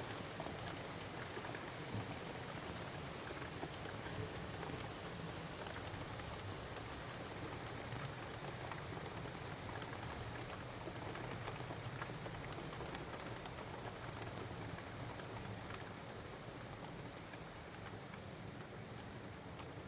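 Heavy rain falling steadily, a dense even hiss with many scattered drops ticking on nearby surfaces, slightly quieter near the end.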